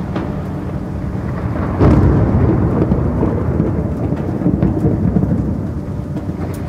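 Thunderstorm soundscape played over the presentation: rolling thunder over a rain-like hiss, with a sudden louder clap of thunder about two seconds in that rumbles on.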